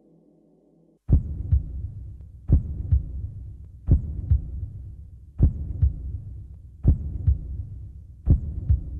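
Slow heartbeat, a lub-dub double thump about every one and a half seconds, starting about a second in, over a low steady hum.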